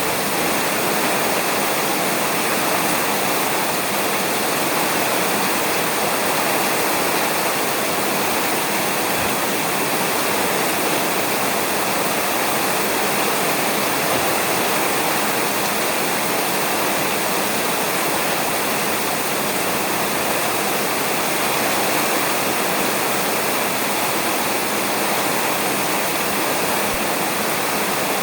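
Steady rain on a roof, a dense, even hiss that doesn't rise or fall.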